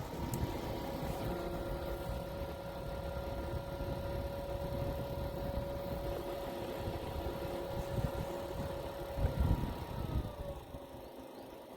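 Small SmartDevil USB desk fan running at a steady speed with a steady motor whine over a low rumble. The whine drops in pitch about ten seconds in as the fan slows down.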